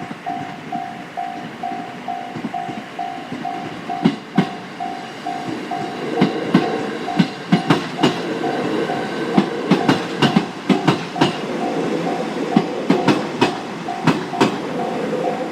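Japanese level-crossing warning bell ringing steadily, about two and a half dings a second, while a train runs over the crossing. From about four seconds in, wheel clacks over the rail joints and a running rumble join the bell, and the clacks come thick and fast from about six seconds on.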